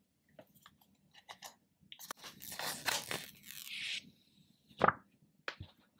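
Protective screen film being peeled off an iPhone 12 Pro Max, crackling and crinkling for about two seconds, with a few light handling clicks before it. A sharp knock near the end is the loudest sound.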